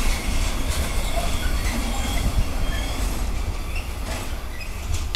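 Container freight train's last wagons rolling past on the rails, a steady low rumble and rattle of wheels as the end of the train goes by and moves away.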